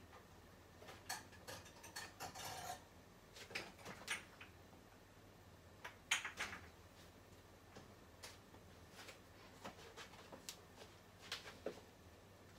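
Faint, scattered clicks, clinks and rustles of kitchen items being handled, in a few short clusters with quiet between them.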